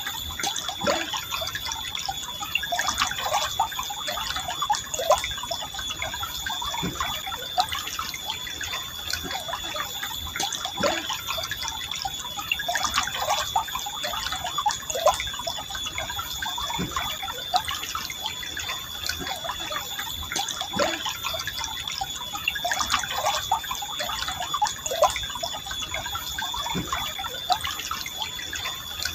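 River water flowing steadily, with many small drips, plinks and gurgles scattered through it. A thin, steady high-pitched tone runs under the water.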